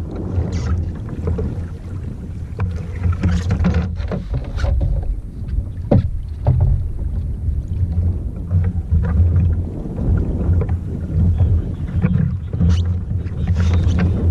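Wind buffeting the microphone in a steady low rumble, with water sloshing against a kayak and scattered knocks and clicks.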